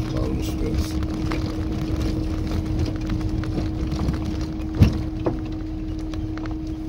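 Tofaş Kartal's engine running as the car drives slowly over a dirt road, heard from inside the cabin as a steady low rumble with a constant hum. Two knocks from the car jolting over the rough road, a sharp one just under five seconds in and a smaller one half a second later.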